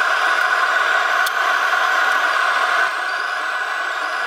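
Steady mechanical roar like a running blower or burner, dropping a little in level about three seconds in.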